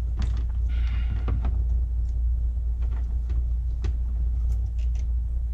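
Steady low rumble in the background, with scattered light clicks and a brief rustle as wires and multimeter test leads are handled.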